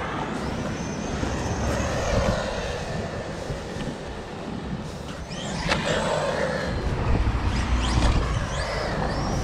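SG1602 1/16-scale brushless RC car's 2435 3900 kV motor whining as the car speeds up and passes, its pitch rising and falling several times, with a low rumble in the second half.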